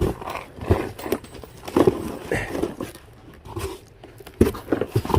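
Handling noise as items are unpacked and sorted: a series of irregular knocks and light rustling.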